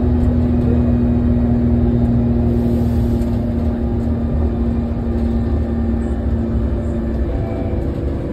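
Irisbus Agora L articulated bus running: a steady engine drone with a constant whining tone, easing slightly near the end.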